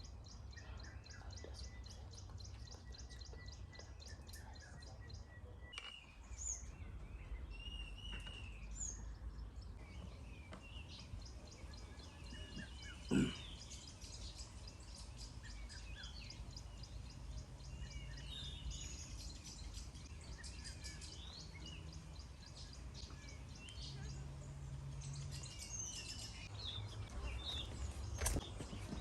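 Wild birds calling and chirping over a low outdoor rumble, with a fast, even high ticking trill for the first five seconds or so and one sharp click near the middle.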